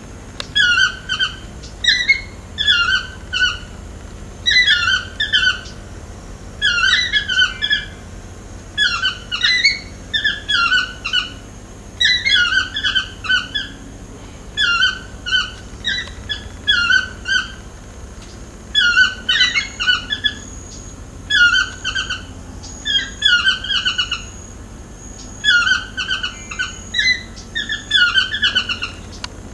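Yellow-throated (chestnut-mandibled) toucan calling over and over: a yelping phrase of several quick down-slurred notes, repeated about once a second.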